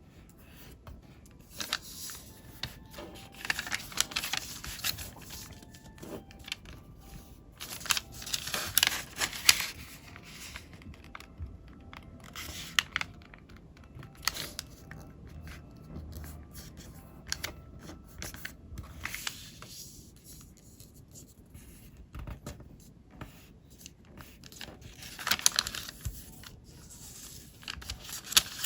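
Square of colored origami paper being folded and creased by hand: irregular rustling and crinkling with sharp little snaps, in several louder bursts of a second or two.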